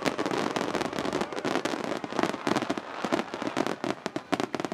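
Fireworks display finale: a dense barrage of aerial shells bursting in rapid, overlapping bangs, thinning out near the end.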